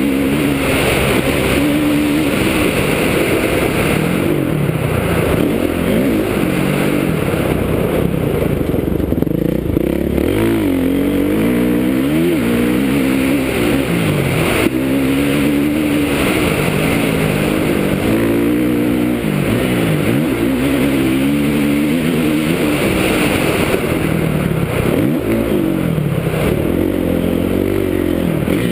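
Kawasaki KX450F motocross bike's single-cylinder four-stroke engine under hard riding, its revs climbing and dropping again and again through throttle and gear changes, heard from the rider's helmet.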